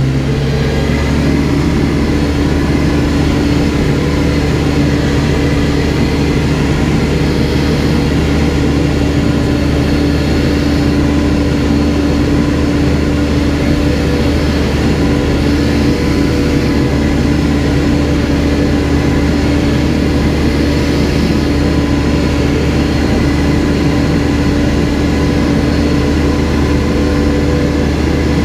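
Backhoe's diesel engine revving up within the first second, then running steadily at high revs.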